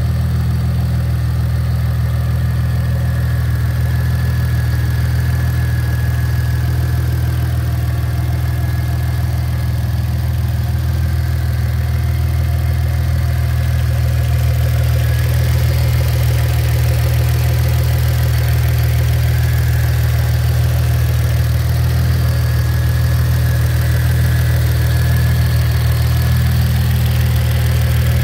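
Audi 2.8 V6 biturbo engine idling steadily on newly fitted Maxpeedingrods GT28/71 turbochargers, on its first run after the turbo swap.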